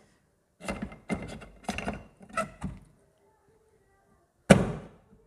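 Aluminium crankcase half of a TVS Metro engine struck down once with the flat of the hand to seat it on the gasket: a single sharp knock near the end that rings briefly.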